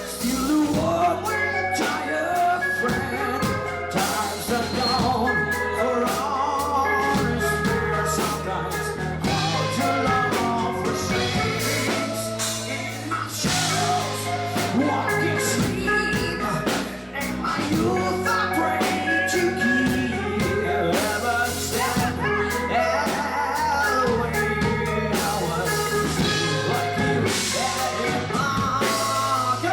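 A live rock band playing a song with a lead singer, electric guitar, bass and drums.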